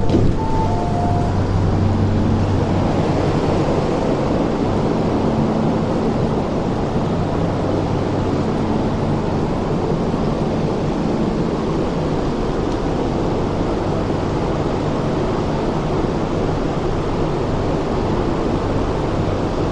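An MTR train's two-tone door chime, high note then low, finishes about a second in as the doors open. Then the steady din of a busy underground station platform: passengers walking, with a constant low hum.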